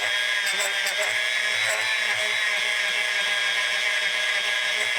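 Dremel rotary tool running at a steady high speed with an even whine, buffing metal polish on small steel sockets.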